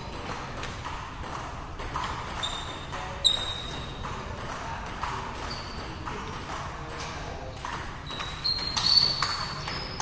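Table tennis rally: the ball clicking off bats and table in quick alternation, about two hits a second, with a louder flurry of hits near the end.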